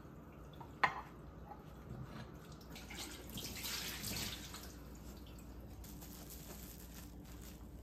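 Faint water running and dripping from a kitchen tap into the sink, swelling about three to four seconds in, with one sharp clink of dishware about a second in.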